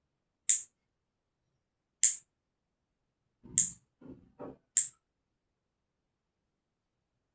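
Nail clipper snipping through long, month-old nails: four sharp clicks about a second and a half apart, with a little soft rustling between the third and fourth.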